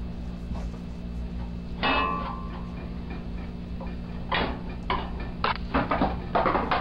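A metal stirrer clinking and knocking against a skillet while chopped meat is broken up to brown: one ringing clink about two seconds in, then a run of quicker knocks and scrapes in the last few seconds, over a steady low hum.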